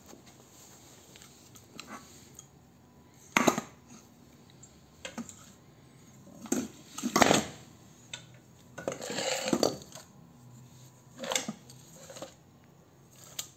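Scrap electric motors clanking and knocking against each other as they are picked up and moved about by hand. There is a series of separate sharp metallic knocks, the loudest about three and a half and seven seconds in, and a longer scraping rattle around nine seconds.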